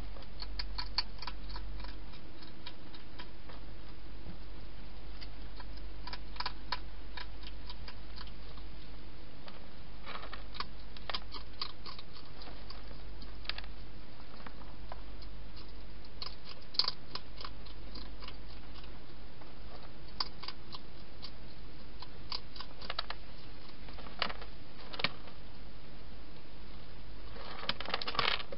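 Hedgehog eating from a bowl inside a plastic feeding station: irregular small crunching clicks, with a denser run near the end, over a steady low hum.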